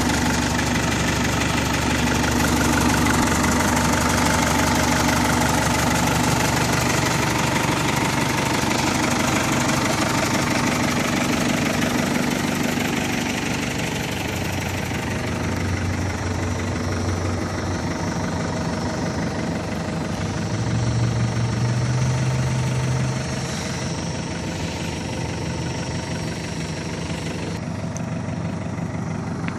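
New Holland backhoe loader's diesel engine idling steadily. Its low note rises and grows louder briefly about two-thirds of the way through, then drops back a little quieter.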